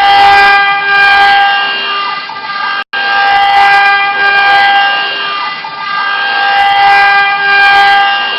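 CNC engraving machine's spindle running, a steady high whine over a rough cutting noise as it engraves PVC. The sound breaks off for an instant about three seconds in.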